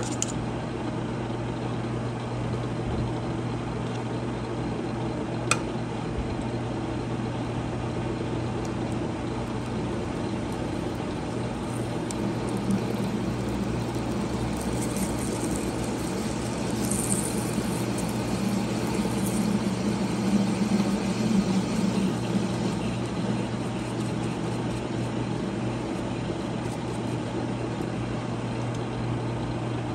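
Machine tool running steadily and taking a cut in 1045 steel with a steady motor hum. The cutting noise grows louder through the middle, with a single sharp click a few seconds in.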